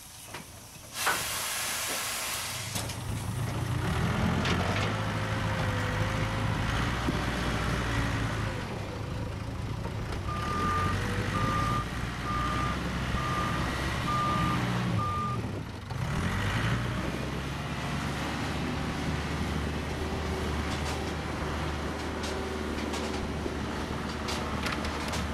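A backhoe loader's diesel engine running as it works a coal pile, its pitch rising and falling with the load. Partway through, its reversing alarm beeps six times, about once a second. A loud hiss is heard briefly about a second in.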